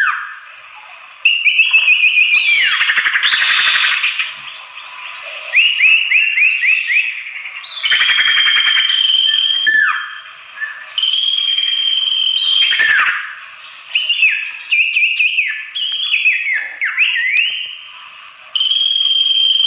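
Common iora (sirtu) singing. Long steady whistles, each ending in a sharp drop in pitch, alternate with runs of four or five quick down-slurred notes and stretches of scratchy chattering.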